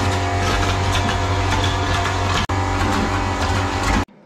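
Small air compressor running steadily with a low hum and a hiss, pushing air into the drained water pipes through a pressure-gauge manifold for leak testing. It breaks for an instant about two and a half seconds in, then cuts off suddenly near the end.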